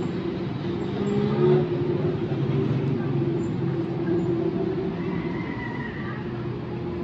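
Street ambience: a steady hum of car traffic, with indistinct voices of passers-by.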